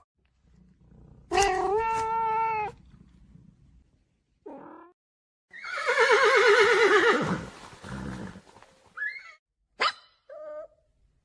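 Domestic cat calls: a held meow, a short one, then a long wavering yowl that falls in pitch, followed by a few brief meows near the end.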